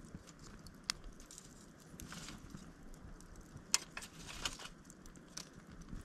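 Campfire wood burning and crackling, with irregular sharp pops about a second in and a few more in the middle, over a low steady background noise.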